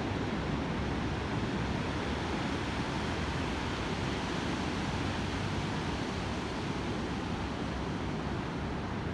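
Sea surf washing onto the beach: a steady rush of breaking waves.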